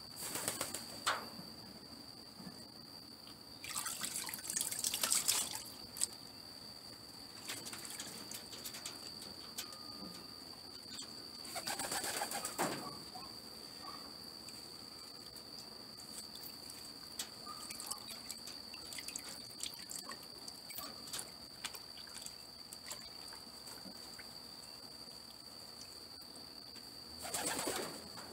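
Water splashing and sloshing in a plastic bucket as a racing pigeon is held and rubbed in a force bath. The splashes come in a few short bursts, with small drips and trickles between them, over a steady thin high whine.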